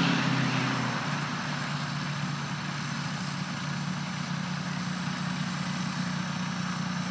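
Small farm tractor's engine running steadily under load as it drags a wooden shed across a field, a little louder for the first second and then even.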